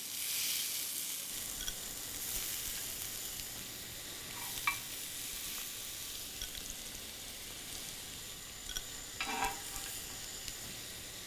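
Sliced bell peppers and onions sizzling steadily in hot olive oil in a pan, with a couple of brief utensil knocks as the vegetables are stirred.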